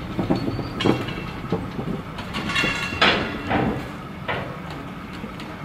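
Sounds of the standing FS class 746 steam locomotive: sharp metallic knocks, the loudest about three seconds in, and a burst of hissing over a continuous low din.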